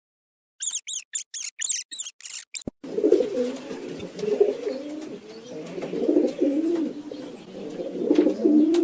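A pet rat squeaking in a quick series of high chirps, about four a second, then from about three seconds in a flock of feral rock pigeons cooing, several birds overlapping in a low, continuous warble.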